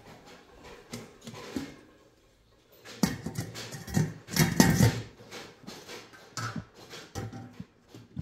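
Metal lids knocking and clattering against steel cooking pots, in a burst of clanks about three to five seconds in, followed by a few lighter knocks.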